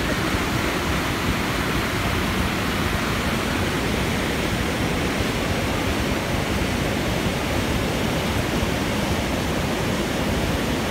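Steady rushing road and wind noise inside a moving car's cabin, even throughout with no engine note or other events standing out.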